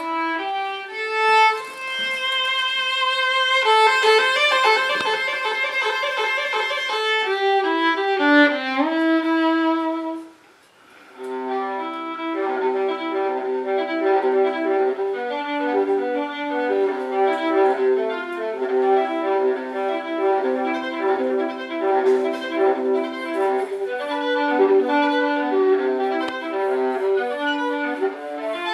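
Solo violin played with the bow: high held notes and quick runs, a brief pause about ten seconds in, then a fast, rhythmic passage lower down with several notes sounding together.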